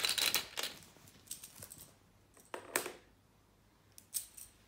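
Scattered light clicks and rustles, with a sharper knock about two and a half seconds in and another near the end.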